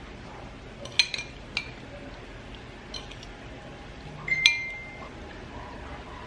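Dishes and cutlery clinking: a few light clinks, then a louder clink past the middle that rings briefly.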